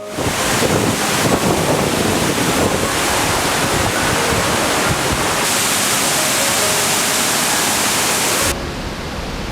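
Steady, loud rush of falling water from a waterfall. Near the end it cuts abruptly to a quieter, duller rush.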